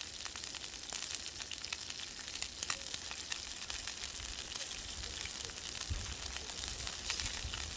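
Ribeye steak sizzling as it sears over the fire: a steady hiss dotted with many small pops and crackles.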